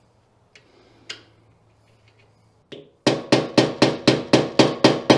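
Hammer driving a flat screwdriver against the staked collar of a BMW M3's rear axle nut to unstake it. A few light taps, then from about three seconds in a fast, even run of sharp blows, about four a second.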